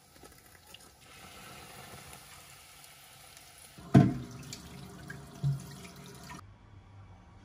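Chicken katsu cutlets sizzling in hot oil in a frying pan. About four seconds in a glass lid clanks down onto the pan, with a smaller knock a moment later, and the sizzling cuts off near the end.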